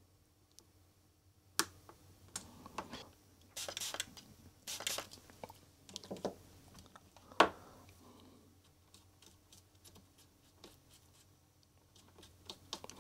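Small flush cutters snipping and scraping at the plastic casing of a Dallas real-time clock chip, trimming off a leftover piece of its internal battery wire: a few sharp clicks, the loudest about seven seconds in, with short bursts of scratching between.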